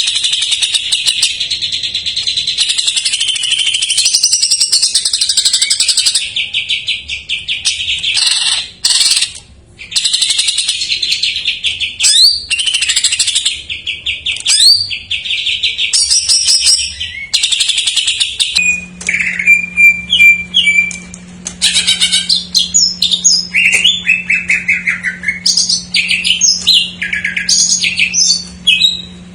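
Cucak ijo (green leafbird) singing loudly and without pause: long runs of rapid trills give way to quick, varied chattering and whistled phrases that mix in imitated songs of other birds. A steady low hum comes in about two-thirds of the way through.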